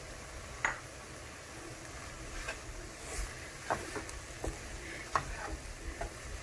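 Slotted wooden spatula stirring and scraping a poha stuffing around a nonstick frying pan, with irregular short scrapes and taps against the pan over a low sizzle.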